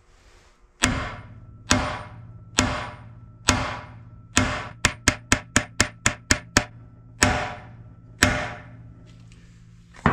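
Hammer blows on a driver against a stuck bearing in a CAT D4D engine block, each hit ringing metallically: five spaced blows, then a quick run of about nine, then a few slower ones. The bearing is not moving.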